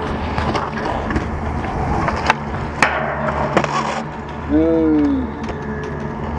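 Skateboard wheels rolling on concrete, with a few sharp clacks of the board about two to four seconds in. About four and a half seconds in comes a short voice call that rises and falls.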